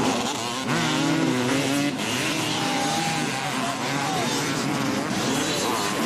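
Motocross dirt bike engines revving up and down through the gears as the bikes race around the track, with one bike passing close near the end.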